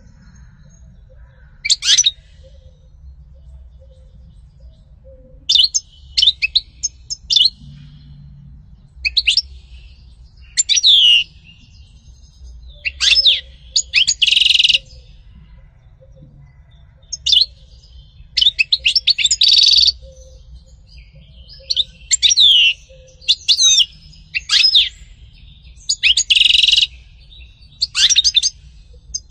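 European goldfinch singing in short bursts of quick, high twittering phrases with pauses of a second or two between them, several phrases ending in a harsh buzzy trill.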